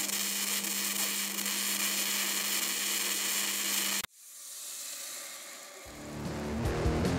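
Sound effect for an animated logo: a steady crackling, sparking hiss over a low electrical hum, which cuts off suddenly about four seconds in. A soft whoosh swells after it, and electric guitar music begins near the end.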